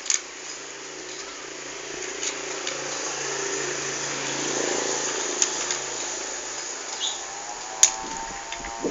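A puppy eating from a metal bowl, with a few sharp clicks of food and bowl, over a steady background hiss and a low hum that swells and fades in the middle.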